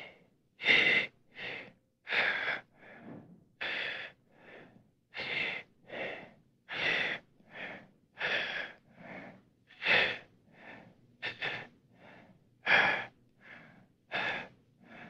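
A person's heavy, laboured breathing, dubbed over the footage: rapid gasping breaths in and out, about three every two seconds, alternating louder and softer, like someone struggling for air.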